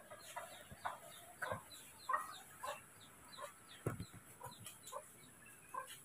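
Short animal calls repeated about twice a second, with high falling chirps above them and a low thump near the middle.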